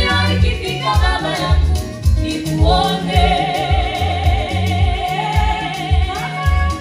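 Gospel music: a woman sings lead into a handheld microphone over a steady low beat, holding one long note from about three seconds in until near the end.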